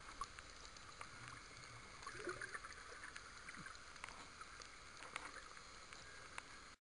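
Faint underwater swimming-pool ambience picked up by a submerged camera: a steady hiss with scattered clicks and crackles and a short bubbly gurgle about two seconds in, cutting off abruptly near the end.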